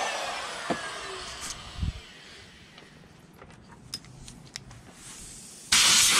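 Die grinder with a carving burr winding down, its whine falling in pitch over the first second, followed by a few light clicks and a knock. Near the end the grinder starts up again with a sudden loud, steady whir as it works the carved bear's snout.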